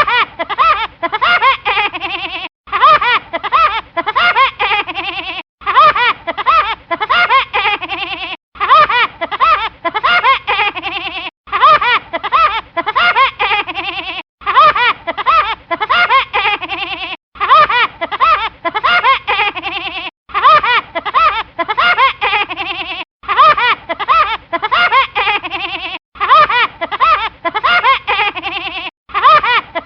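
Woody Woodpecker's cartoon laugh, looped as a ringtone: about ten repeats roughly three seconds apart, each loudest at its start and trailing off, with a short break between them.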